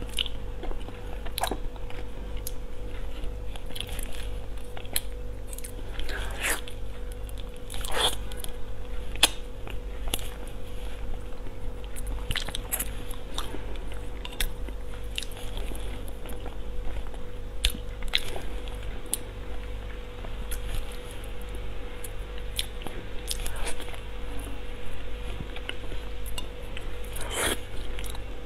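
Close-miked chewing and mouth sounds of a person eating soft durian flesh, with scattered short wet smacks and clicks, over a steady low hum.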